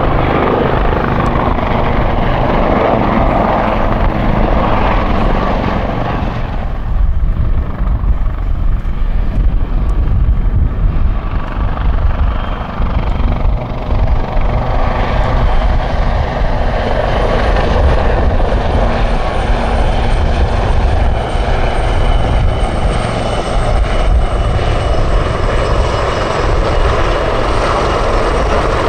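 Two Westland Lynx-family helicopters flying a display pass in formation: steady rotor and turbine noise that grows louder about a quarter of the way in, with a thin high turbine whine joining in the second half.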